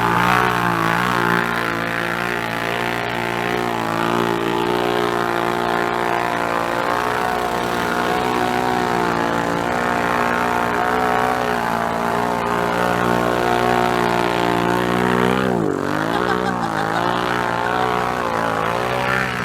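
Side-by-side UTV engine running hard at steady high revs. A few seconds before the end its pitch drops and climbs back again.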